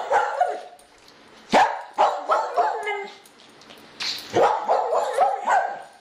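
A dog barking: several sharp barks and yips, the loudest about a second and a half in and again just past four seconds.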